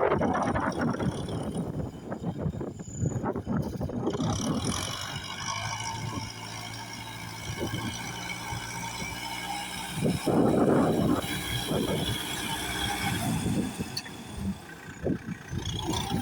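Kubota tractor engine running while working a rice field. The level rises and falls, with louder, rougher surges near the start and again about ten seconds in.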